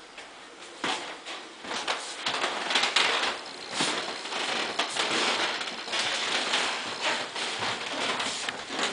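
Shuffling footsteps, clothing rustle and small knocks as several people move about a room.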